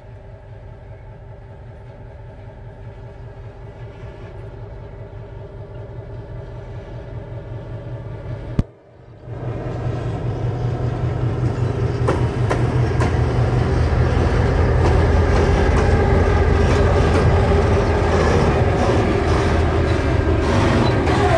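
A Serbia Cargo class 661 diesel-electric locomotive approaches slowly with a freight train, its diesel engine running with a steady hum that grows louder. It then passes close by, with the rumble of wheels and repeated clicks on the rails. About nine seconds in there is a sharp click and a half-second cut in the sound.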